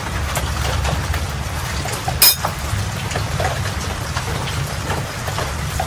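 A steady low rumble with faint scattered ticks, and one sharp clink about two seconds in, from kitchen utensils being handled.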